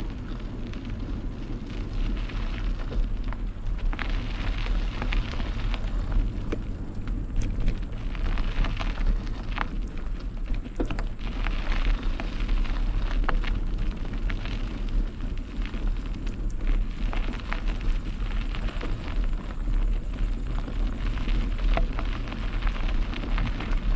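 Mountain bike rolling over a dirt and gravel track, with frequent short crackles and clicks from the tyres and the rattling bike over a heavy rumble of wind on the microphone.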